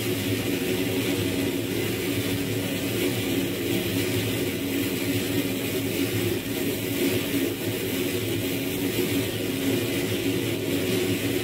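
Dense electronic noise drone generated in the frakMSP software suite, held steady with a low hum under a hissing upper band and no clear beat.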